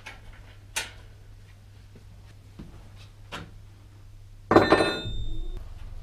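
A few light knocks, then a sudden loud metallic clatter about four and a half seconds in with a brief ringing, as metal bicycle parts are handled.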